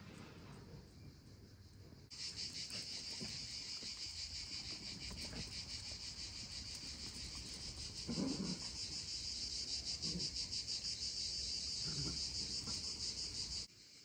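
Insects shrilling in chorus: a steady, high-pitched buzzing trill with a fast even pulse. It starts suddenly about two seconds in and cuts off suddenly near the end.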